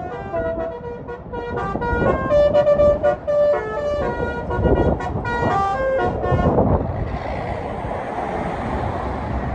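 Bus basuri (telolet) melody horn playing a quick tune of stepped notes, each held a fraction of a second, for about seven seconds. A steady rushing noise follows near the end.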